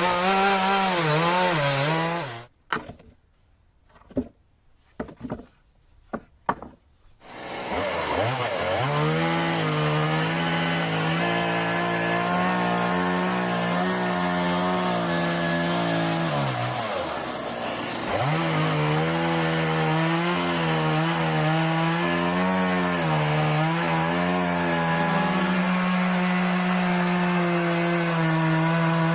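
Chainsaw running under load as it cuts through a log in a mill guide, its engine note wavering. About two and a half seconds in it drops out to near silence with a few sharp knocks, then starts up again and runs steadily, sagging briefly in pitch about two-thirds of the way through as the cut loads it.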